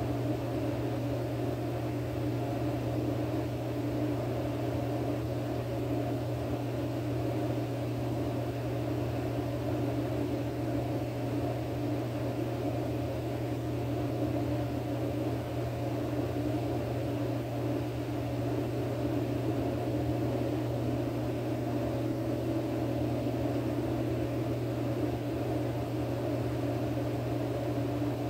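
Steady mechanical hum with a low drone and a rushing noise, unchanging throughout.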